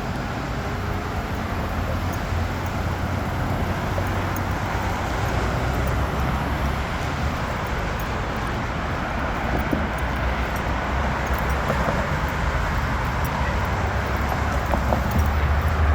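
Steady road traffic at a busy intersection: cars running past with engine rumble and tyre noise, no distinct single event standing out.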